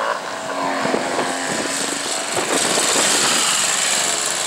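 Vintage motorcycle engine running at speed as the bike approaches and passes, getting louder toward its loudest point about three seconds in.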